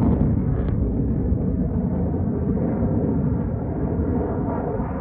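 Steady low roar of F-16 fighter jet engines flying an air show display.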